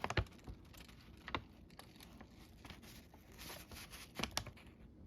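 Faint rustling and crinkling with scattered light clicks, like paper being handled, with a few louder clicks near the start and again about four seconds in.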